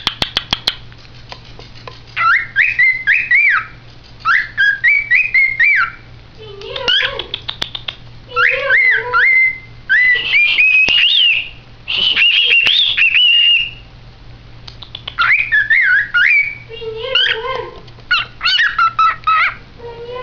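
Cockatiel whistling its song in repeated phrases of rising and falling notes. Short bursts of rapid clicking chatter come between the phrases.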